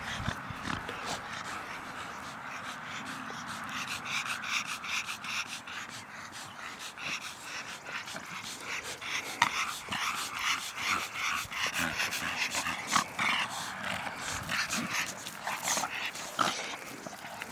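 Two dogs play-fighting: a run of short, rough dog noises mixed with scuffling, getting busier about four seconds in.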